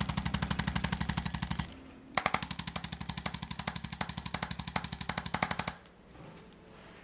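Arthrostim handheld adjusting instrument tapping rapidly against the patient's back, about a dozen clicks a second. One run stops under two seconds in, and after a short pause a longer run stops about two-thirds of the way through.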